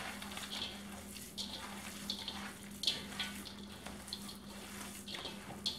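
Hands squishing and kneading a raw ground-beef meatloaf mixture in a stainless steel bowl: soft, irregular wet squelches. A steady low hum runs underneath.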